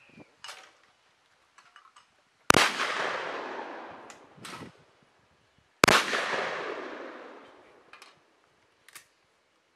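Two shotgun shots about three seconds apart, each a sharp blast that echoes away over about two seconds. Smaller clicks and knocks come between and after the shots.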